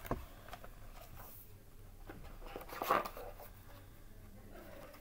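A large hardcover picture book being handled and a page turned: a sharp knock just after the start, then a brief rustle of paper about three seconds in.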